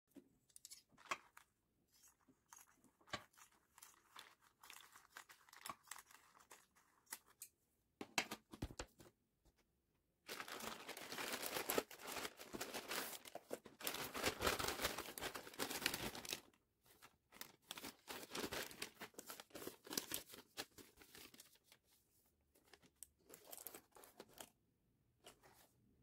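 Packaging being handled and opened: scattered clicks and rustles, then about six seconds of continuous tearing and crinkling of packaging, then more short rustles and clicks.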